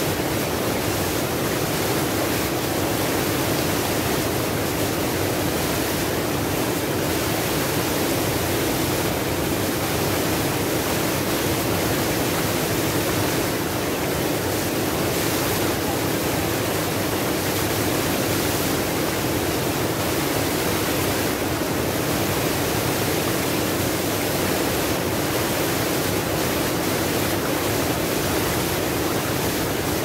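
Small waterfall pouring over boulders into a shallow rocky pool: a steady rush of falling water that holds even throughout.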